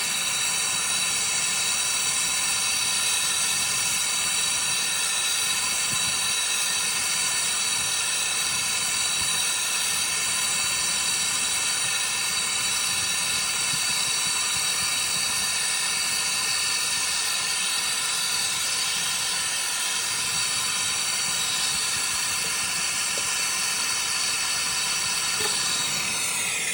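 Gas torch flame hissing steadily as it heats a brazed copper joint on a refrigerator filter drier to red heat to unbraze it.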